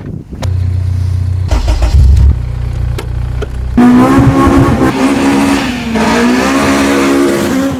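Car engine sounds: a deep, steady engine drone for the first few seconds. About four seconds in, it switches abruptly to a four-cylinder engine revved hard at high rpm, its pitch wavering up and down.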